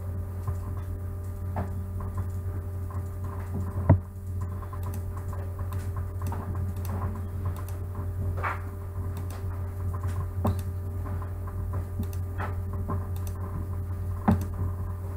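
Scattered computer mouse clicks over a steady low electrical hum, with a louder click about four seconds in and another near the end.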